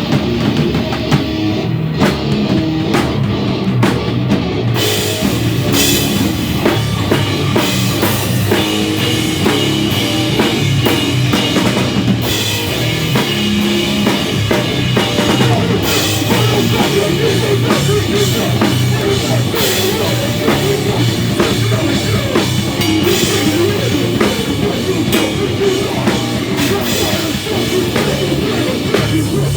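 A rock band playing live, with a full drum kit and guitar; the high end fills out about five seconds in.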